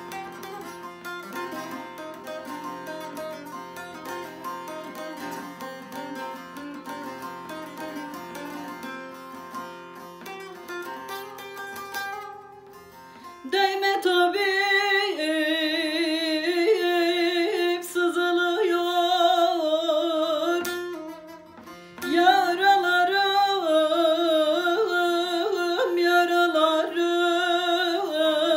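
Bağlama (long-necked Turkish saz) playing a plucked melody alone. About halfway through, a woman starts singing a Turkish folk song over it, loud and with a wavering vibrato; her voice breaks off for a moment and then comes back.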